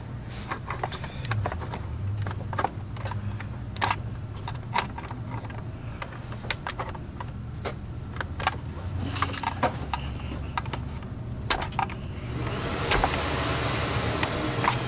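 Plastic parts of an electric vacuum power-brush head clicking and knocking as they are handled and fitted together during reassembly, in many separate sharp clicks. Near the end a steady rushing noise comes in.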